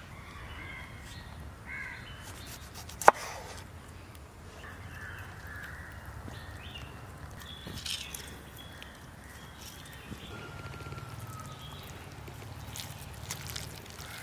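Birds calling in outdoor woodland ambience: scattered short calls and a brief falling whistle. One sharp click about three seconds in is the loudest sound.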